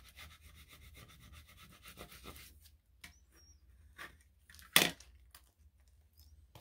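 Plastic scraper rubbed quickly back and forth over a vinyl decal on transfer tape, burnishing it before the backing is peeled: a fast rasping scrape for about two and a half seconds. Then a few light clicks and one sharp knock a little under five seconds in, as the scraper is put down on the cutting mat.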